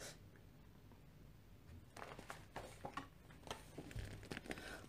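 Faint rustling and soft clicks of a paper coloring book being handled and lifted, starting about halfway through, with a soft bump near the end.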